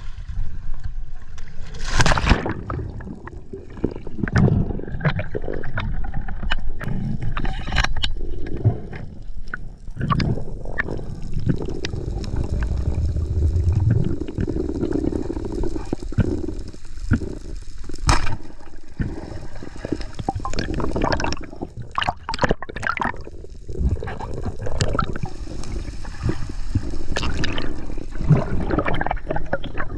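Water sloshing and gurgling, with scattered knocks and scrapes throughout and a sharp knock at about 2 s and another at about 18 s.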